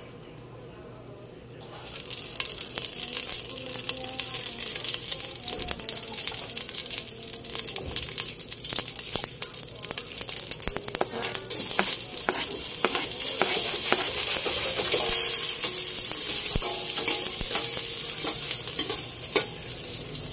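Hot cooking oil, taken from the chicken-frying pan, sizzling and crackling in a cooking pot, starting suddenly about two seconds in. Constant spattering pops, a little louder in the second half.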